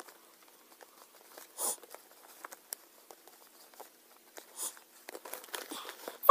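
Wrapping paper on a gift box crinkling and rustling as it is handled, with scattered small clicks and two brief louder swishes, one about a second and a half in and one about four and a half seconds in.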